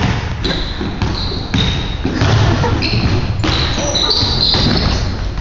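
A basketball bouncing on a hardwood gym court, with several short, high sneaker squeaks as players run and cut.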